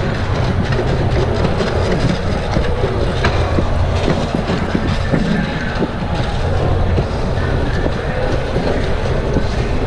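Metal hand cart loaded with five-gallon water jugs rolling over a tiled floor: a steady rumble with many small rattling clicks from the wheels and frame.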